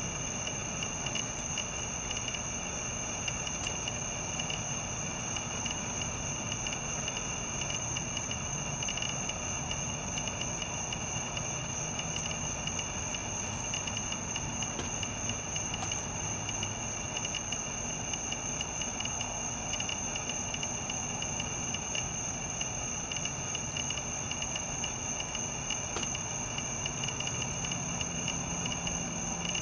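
Steady, high-pitched chorus of night insects trilling without a break.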